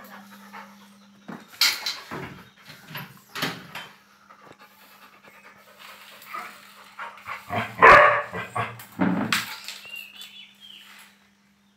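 Two dogs, a black Labrador puppy and a small black-and-white dog, barking and yelping while they play: a few short barks in the first seconds, then a louder cluster of barks about eight seconds in, followed by a short whine. A steady low hum runs underneath.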